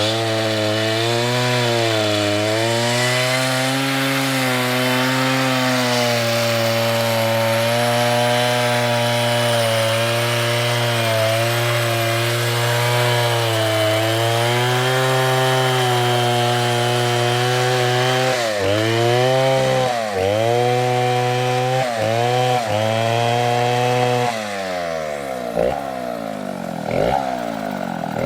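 Stihl chainsaw cutting through a large piece of wood, its engine held at a steady, slightly wavering pitch under load. Toward the end the pitch dips sharply several times, then the saw comes off load and the engine runs quieter, its pitch swinging up and down.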